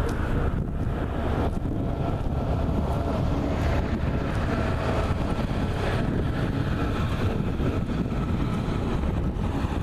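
Strong winter wind blowing over the microphone: a steady low rumbling noise.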